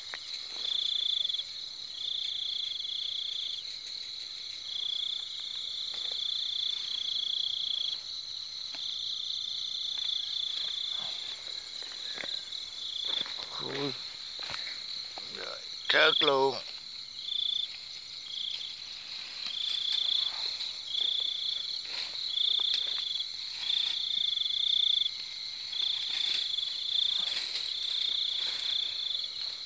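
Night insects calling: a steady high-pitched drone, with a pulsing chirp repeating in short runs of about a second. Faint rustles of plants are heard as someone moves through undergrowth.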